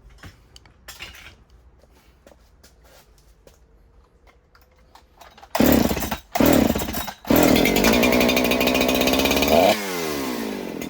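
Husqvarna 365 two-stroke chainsaw engine pull-started on a squirt of fuel in the intake: about halfway through it fires twice briefly, then catches and runs for about two seconds before its pitch falls and it dies. Firing on the primed fuel shows it has spark and compression, pointing to a dirty or worn carburetor.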